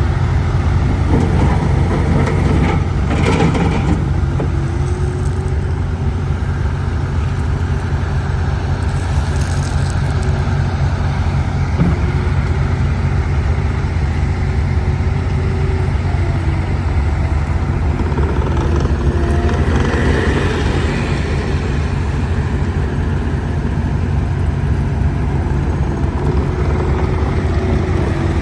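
Bobcat T76 loader's diesel engine running steadily, a deep even hum with no speech over it.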